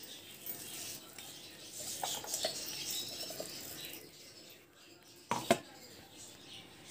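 Coarse ground dal paste being scraped and pushed out of a steel mixer-grinder jar into a bowl: soft scraping and rustling, then two sharp knocks a little after five seconds in.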